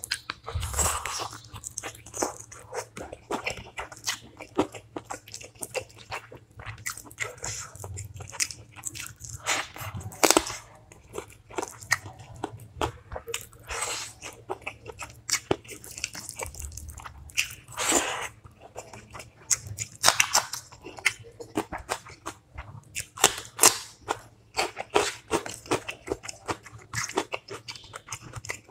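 Close-miked eating sounds: a person chewing and biting food, with irregular sharp wet mouth smacks and clicks, several a second.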